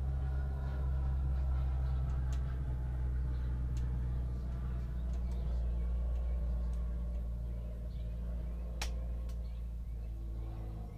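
Steady low drone in the cockpit of a small aircraft in flight, with a few faint ticks and one sharp click about nine seconds in.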